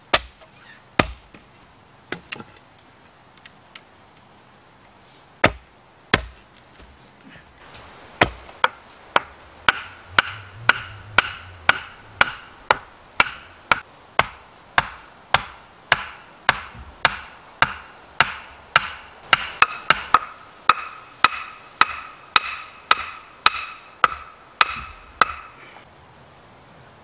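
A hand tool striking wood. A few separate knocks come first, then from about eight seconds in a steady run of blows about two a second, each with a short ringing note, stopping shortly before the end.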